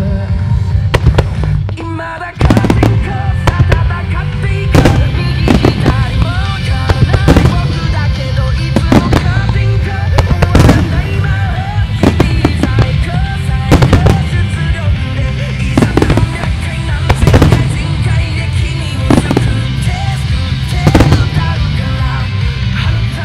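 Music with a heavy bass beat, joined about two seconds in by aerial firework shells bursting along with it. A sharp bang comes every second or two, and the bangs are the loudest sounds.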